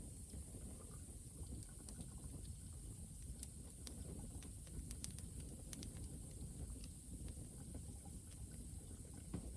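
Bonfire burning down to embers, crackling faintly with scattered small irregular pops over a low steady rumble.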